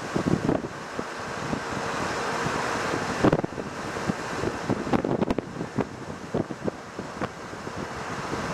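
Wind buffeting the microphone in irregular gusts over the steady noise of a vehicle moving along a paved road, with a strong gust about three seconds in.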